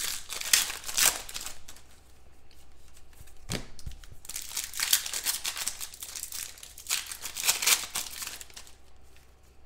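Foil wrappers of 2016 Contenders football card packs crinkling and tearing open in several bursts of crackle, with a single sharp knock about three and a half seconds in.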